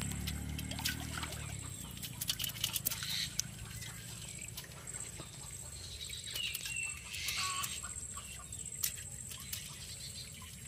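Freshly caught live shrimp ticking and flicking against the inside of an aluminium pot: a scatter of sharp clicks, thickest a couple of seconds in. A brief bird call comes about two-thirds of the way through.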